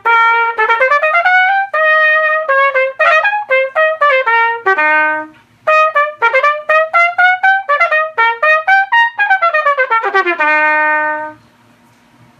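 An 1860s Moses Slater E-flat soprano cornet with side-action rotary valves, played solo: a quick melody of short notes and runs up and down. After a short pause about five seconds in it resumes, then finishes with a falling run onto a held low note.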